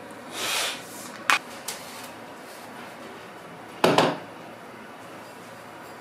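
Dishes being put away in a kitchen: a short swish, two light clicks, then two sharp knocks close together about four seconds in as a dish is set down on the shelf.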